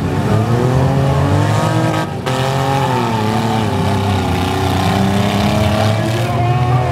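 Several six-cylinder demolition derby car engines revving hard and unevenly at the same time as the cars push against each other, their pitches rising and falling, with a brief let-up about two seconds in.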